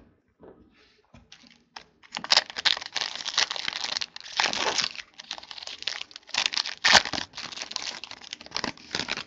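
Crinkling of a trading-card pack wrapper being handled and torn open. A few light clicks come first, then continuous crackling starts about two seconds in, with sharper crinkles midway.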